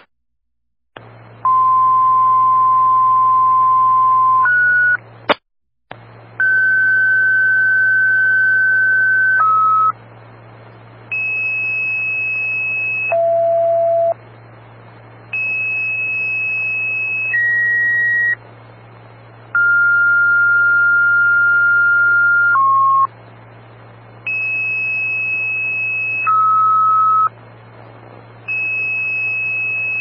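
Two-tone sequential fire paging tones sent over a dispatch radio channel and heard through a scanner: six pages in a row, each a steady tone held two to three seconds followed by a shorter tone at a different pitch, with radio hiss and a low hum between them. These tones set off the pagers and station alerts of the fire departments being called.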